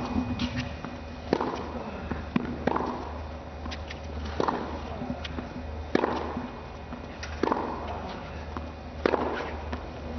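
Tennis rally: racket strikes on the ball every second and a half or so, six in all, each with a short echo, with fainter clicks between them over a steady low hum.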